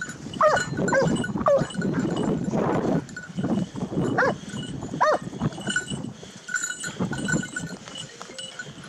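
Hunting dog worrying a shot wild boar, giving several short high yelps that fall in pitch, with rough growling between them.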